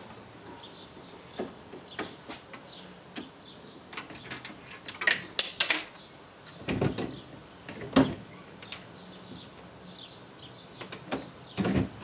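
A screwdriver working the screws that hold a fridge freezer's plastic ice maker in its housing. Scattered clicks and taps, with the loudest knocks and clatter of plastic about five to eight seconds in.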